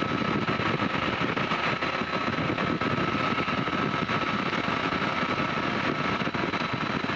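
Pioneer 300's engine running rough inside the cockpit, an uneven, stuttering beat over steady cabin noise with a thin high whine. It has lost two of its four cylinders because of a blocked main jet in the left carburettor.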